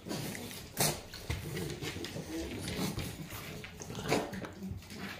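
French bulldogs grunting and sniffing close up, with two short, sharp sniffs: about a second in and again near four seconds, as a dog's nose comes right up to the microphone.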